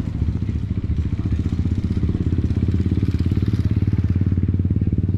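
Motorcycle engine running steadily at a low, even speed, a rapid low putter with no revving.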